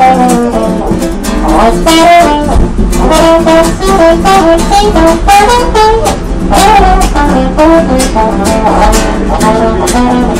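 A small busking band playing jazzy music live: a trumpet plays the melody over an acoustic guitar strummed in a steady rhythm.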